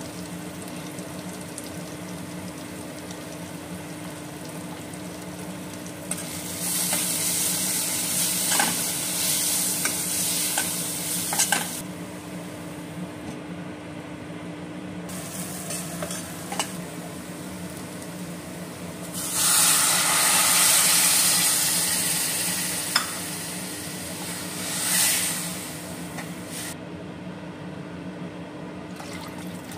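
Onions and spice powders frying in oil in a stainless steel kadai, sizzling as they are stirred, with short clicks and scrapes of the spatula against the pan. The sizzling swells in two louder stretches, about six and about nineteen seconds in, over a steady low hum.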